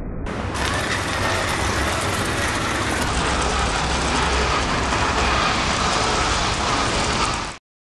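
Small DC gear motors of a cardboard RC motor grader running while its blade scrapes through sand: a steady hiss and whir that cuts off suddenly near the end.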